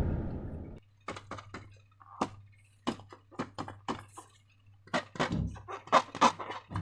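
Slime being handled and squished: a run of short, sharp wet clicks and pops at uneven spacing, growing denser in the second half, after the tail of a louder sound fades out in the first second.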